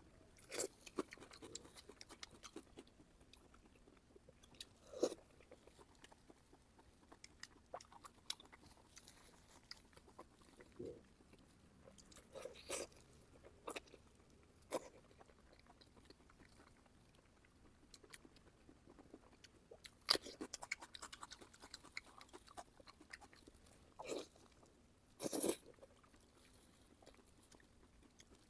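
Close-miked mouth sounds of someone eating pork belly: irregular chewing and biting, short wet clicks and smacks, with a few louder bursts, the strongest about 20 and 25 seconds in.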